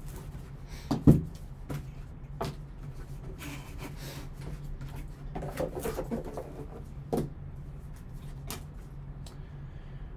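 Gloved hands handling a cardboard trading-card box and a hard plastic card holder: scattered knocks and taps, one sharper knock about a second in, and rustling around the middle, over a steady low hum.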